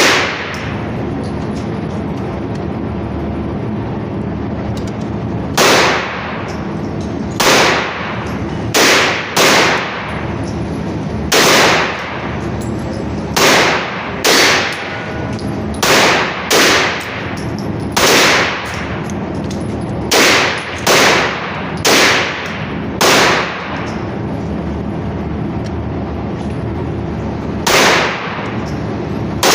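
A semi-automatic firearm fired as single shots at an uneven pace, about fifteen in all, sometimes two in quick succession, each with a short ringing tail. A steady low background noise runs between the shots.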